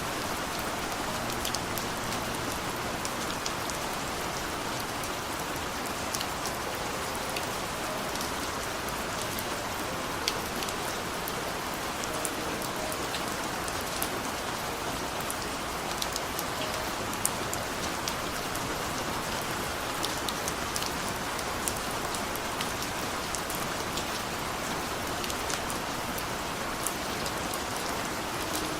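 Steady rain falling, a continuous even hiss with scattered individual drops ticking on a surface.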